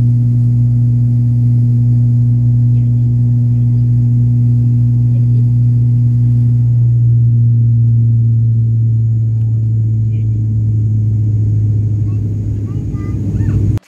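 Cabin drone of an ATR 72-600 turboprop in flight: a loud, steady, low hum from its propellers and engines, easing off slightly near the end.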